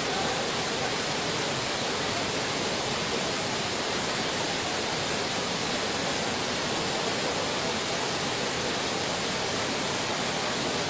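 Rushing floodwater: a steady, even roar of fast-flowing water with no breaks or distinct events.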